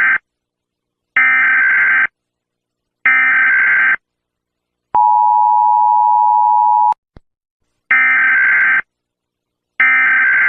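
Emergency Alert System tones: harsh, buzzing data bursts about a second long, repeated with short silences between, then the steady two-tone attention signal for about two seconds, followed by two more data bursts.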